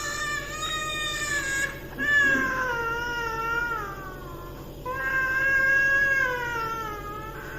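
A young child wailing in three long, wavering cries, with a short break between each, over a steady low hum.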